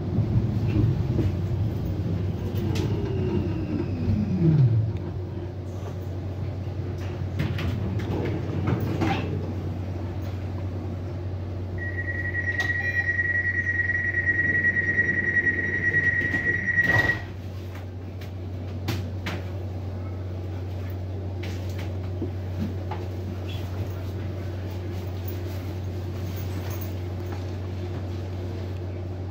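Inside a STIB TNG tram: the drive's whine falls in pitch over the first five seconds as the tram brakes to a stop, over a steady equipment hum. With the doors open at the stop, a steady high door warning tone sounds for about five seconds from about twelve seconds in and ends with a thump as the doors shut.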